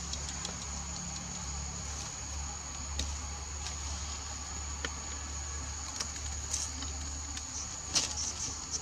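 Insects chirring in a steady high-pitched drone over a low rumble, with a few sharp clicks, the loudest about eight seconds in.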